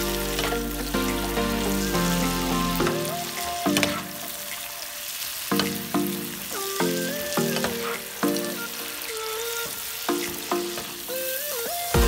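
Sage, rosemary and minced garlic sizzling in melted butter in a frying pan, stirred with a metal spoon, under background music with a melody.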